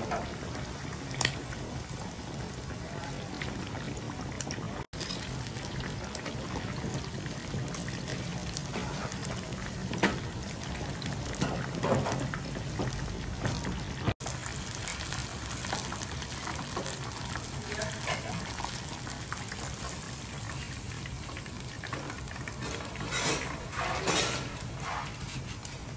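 Food bubbling steadily in hot liquid in a pot or pan, with a few sharp clinks of utensils against the pan. The sound cuts out abruptly twice for an instant.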